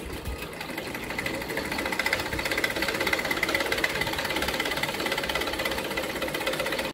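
A 1970s Singer sewing machine stitching at a steady speed, its needle and mechanism making a fast, even clatter that grows louder about a second in.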